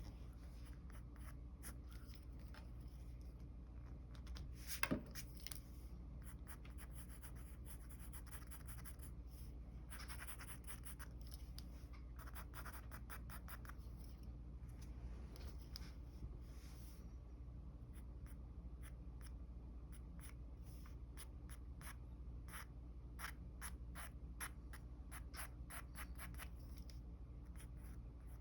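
Mechanical pencil sketching on paper: many short scratchy strokes, coming quicker and denser in the last several seconds, over a steady low hum. One louder, sharper sound about five seconds in.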